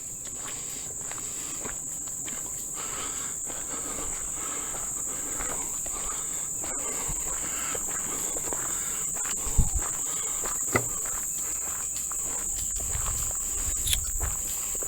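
A steady, high-pitched insect chorus over footsteps on a dirt trail, with a few louder thumps in the second half.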